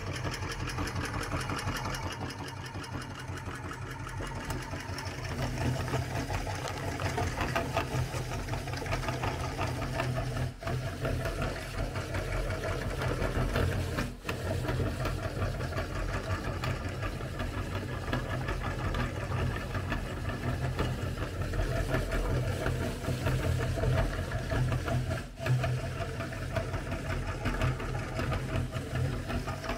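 Belt-driven meat grinder running steadily as it grinds hard sandwich cookies into crumbs, a low mechanical hum with a dense rattling texture.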